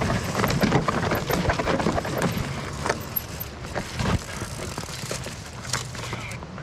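Mountain bike clattering down rocks and roots: sharp knocks of tyres and wheels on stone, with chain and frame rattling. The knocks come thick and fast for the first three seconds, then thin out.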